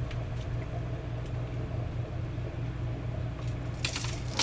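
Steady low mechanical hum, like a fan or motor running, in a small room, with a few faint clicks and a short rustling burst near the end.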